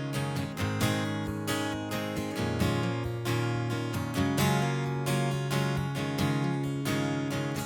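Acoustic guitar strumming chords, an instrumental break in a live country song.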